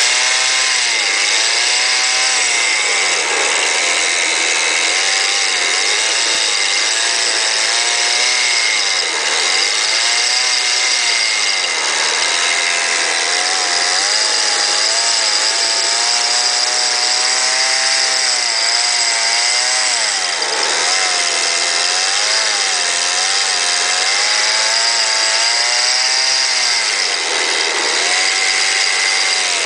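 Small two-stroke petrol engine, taken from a mowing machine, driving a 5-inch gauge locomotive and running noisily like a motorbike. Its speed dips and picks up again every few seconds.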